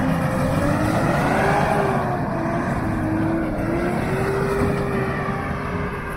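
Mitsubishi L200 pickup's engine revving hard under load as it drives out of a mud rut. The pitch climbs over the first second or so, then holds with small dips.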